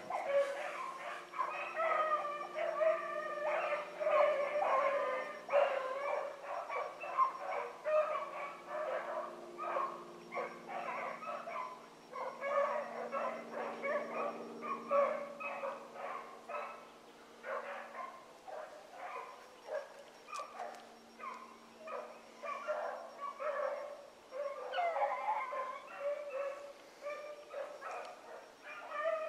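A pack of rabbit-hunting dogs barking and baying in quick, overlapping voices as they run a rabbit through the brush, the sound of the dogs on the rabbit's track. The cry thins out around the middle and builds again near the end.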